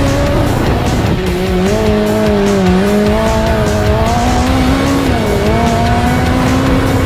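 Honda K24 four-cylinder engine in a USAC midget running at high revs, heard from on board. Its note dips about a second in and again just past five seconds, then climbs back, over low wind and road rumble.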